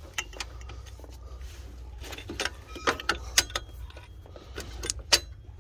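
Light metallic clicks and clinks of steel alternator mounting bolts being handled and fitted into the bracket holes. A few sharper clicks come in the middle and near the end, over a faint steady low hum.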